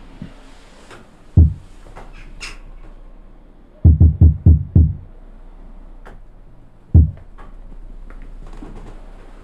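Heavy, dull knocks: one, then a quick run of five about four seconds in, then a single knock near the end, over a low steady hum.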